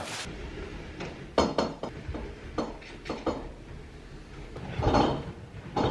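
Light clicks and knocks from kitchen drawers and cupboard doors being handled: a scatter of short ones in the first half, then a louder knock near the end.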